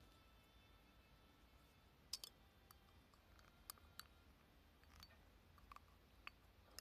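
Near silence: room tone with a few faint, irregular clicks.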